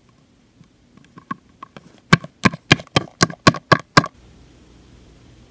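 Quick light footstep taps as a small toy figure walks off: a few faint ticks, then about nine sharp steps at about four a second that stop about four seconds in, followed by a faint steady hum.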